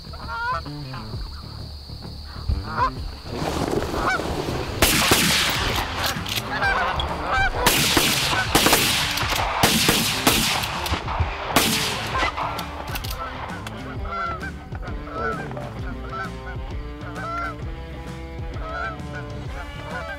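A flock of geese honking again and again as they fly in. Loud rushing bursts of noise come and go from about three to twelve seconds in.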